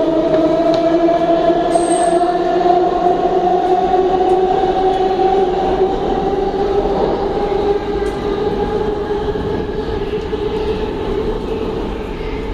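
R142A subway train pulling out of the station, its electric propulsion giving a two-note whine that slowly rises in pitch as it gathers speed, over the rumble of the wheels on the rails. This is the unusual pitch sound the uploader points out.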